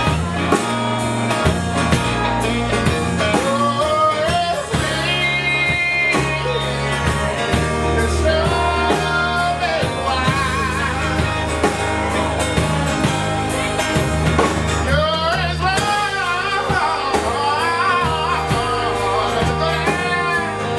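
Live band playing a slow country ballad: guitar melody lines with wavering, bent notes over steady bass and drums, with some singing but no clear words.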